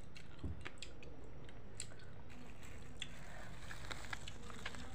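Clear plastic bag crinkling in the hands as it is opened: a quiet scatter of short, sharp crackles and clicks.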